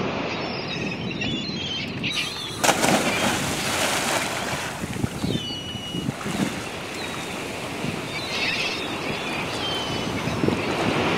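A scuba diver plunges into the water with a loud splash about three seconds in. Churning, foaming water and lapping waves follow, with wind buffeting the microphone.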